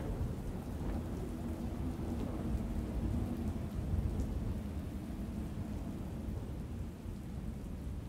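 Steady rain with a low rolling rumble of thunder, swelling about halfway through and easing off near the end.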